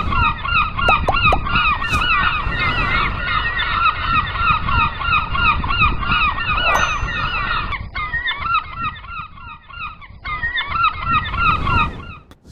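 A flock of gulls calling over one another, many overlapping squawking calls over a low rumble. The calling thins out about eight seconds in and picks up again near the end.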